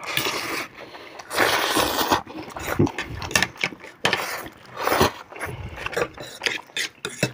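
Close-miked eating of masala Maggi instant noodles: irregular slurps and chewing, with short clicks from forks against the plates.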